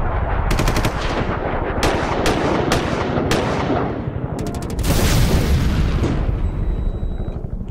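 Intro sound effects: sharp hits and rapid stuttering runs of impacts over a rumbling low bed, swelling into a loud burst of noise about five seconds in that then fades away.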